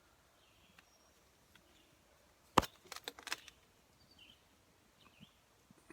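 Quiet outdoor ambience with faint bird chirps. About two and a half seconds in there is one sharp snap, followed by a few lighter crackles, like brush or handling noise.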